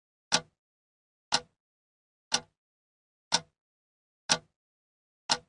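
Clock-tick sound effect: a sharp tick once every second, six in all, keeping time with a countdown.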